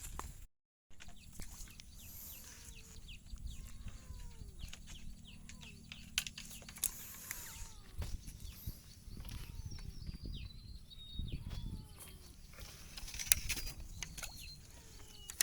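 Birds calling: many short, falling calls overlapping one another, over a low steady hum in the first half. The sound cuts out completely for a moment just after the start.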